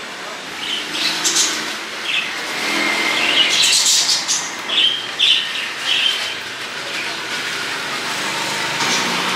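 Street background with passing traffic noise, and a run of short high chirps and hissy bursts from about one second in to about six seconds in.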